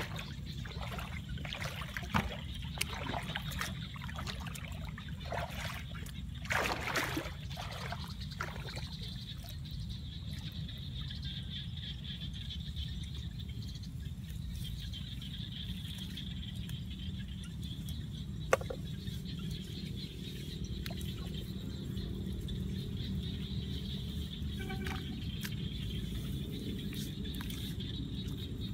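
Shallow paddy water splashing and wet mud being handled as bamboo fish traps are set and packed with mud. The splashes are mostly in the first third, the loudest about seven seconds in, with a single sharp knock later on. Under it all runs a steady low rumble and a thin, steady high hum.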